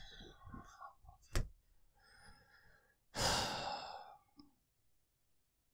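A man's long exasperated sigh, one breath out lasting about a second, starting about three seconds in. A short click comes a second or two before it.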